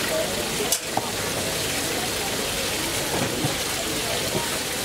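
Steady crackling hiss of oil bubbling in a deep fryer, with faint voices and a sharp click about a second in.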